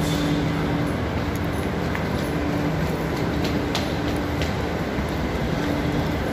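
Delhi Metro train running in the station: a steady rumble with a low hum that comes and goes, and a few light clicks.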